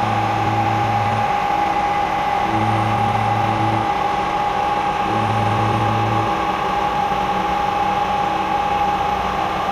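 Variable-speed Bridgeport Series 1 knee mill running, its end mill cutting a metal pommel bar held in an index head. A steady whine sits over the cutting noise, with a low drone that comes and goes three times, about every two and a half seconds.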